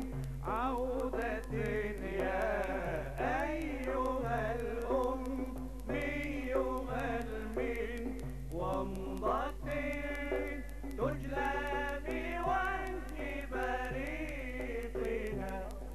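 Men's voices chanting an Arabic nasheed, a melismatic muwashshah for the Prophet's birthday (mawlid), with a steady low mains hum underneath.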